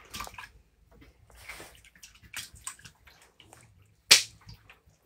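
Pig intestines being washed by hand in a basin of water: scattered splashes and squelches, with one sharper, louder splash about four seconds in.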